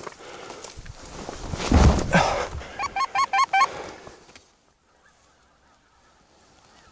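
A loud rustle of movement close to the microphone, then a quick run of five short, evenly spaced goose honks.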